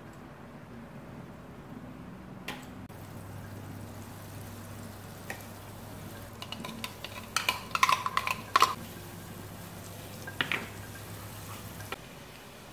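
A wooden spoon scraping and tapping in a nonstick frying pan as cubes of butter melt, with a cluster of sharp clatters about eight seconds in and a few more near ten seconds. A low steady hum runs underneath from about three seconds in.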